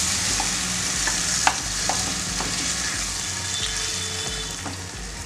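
Mushroom masala sizzling in a kadai with a little water just added, while a wooden spatula stirs and scrapes through it with a few light knocks against the pan. The sizzle slowly dies down.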